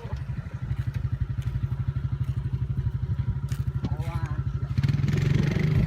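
A small engine running with a rapid, even putter that grows louder about five seconds in.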